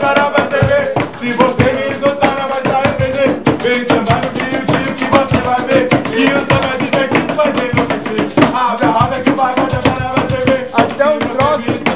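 Informal samba (pagode) sung by a group of men's voices to a hand drum beating a steady rhythm.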